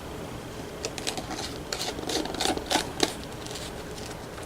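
Lid being pressed onto a plastic container: a run of irregular clicks and taps, mostly between about one and three seconds in.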